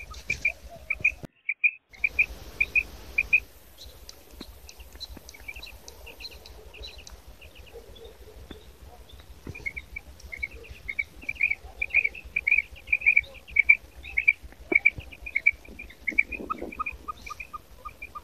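Female quail calling: runs of short, high chirping notes, about three a second, loudest in the second half. A short run of lower notes comes near the end.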